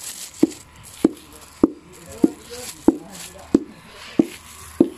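Hand-held stone pounding talisay (tropical almond) nuts on concrete to crack their hard shells: eight sharp knocks in a steady rhythm, a little under two a second.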